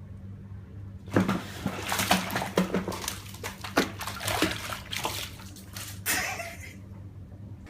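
Water splashing and sloshing in a bathtub in irregular bursts, starting about a second in and dying away near the end, over a steady low hum.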